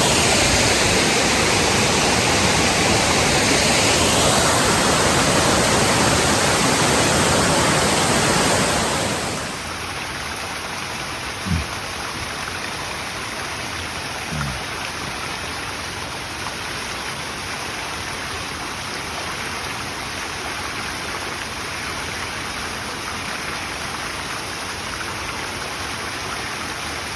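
Large waterfall pouring, a steady rush of falling water. About nine seconds in it drops suddenly to a quieter level, and two brief low thumps follow a couple of seconds apart.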